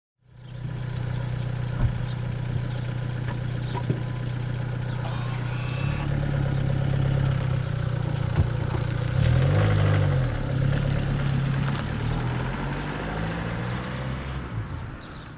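Volkswagen Golf estate's engine idling with a steady low hum, then the car pulls away and drives off, the engine note rising and falling as it gathers speed and fading out near the end.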